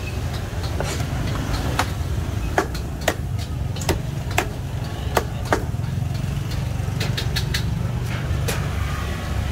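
Street market ambience: a steady low rumble with irregular sharp clicks and clinks, the clearest of them bunched in the middle seconds.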